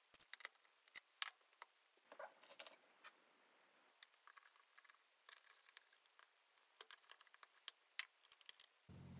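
Faint scattered clicks and taps of hands handling a chainsaw, a screwdriver and a fuel can on a workbench.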